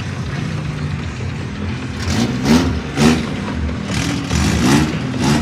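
A car engine running at idle, then revved in several short blips from about two seconds in.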